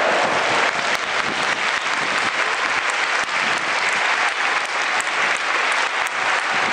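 Large stadium crowd of football supporters applauding: dense, steady clapping from thousands of hands.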